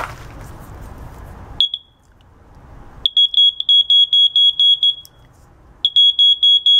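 Continuity tester beeping as its probes touch across a repaired microwave-oven fuse: one short high beep, then two runs of rapid high-pitched beeps, about five a second and each about two seconds long. The beeping shows the fuse, bridged with fine wire, now conducts.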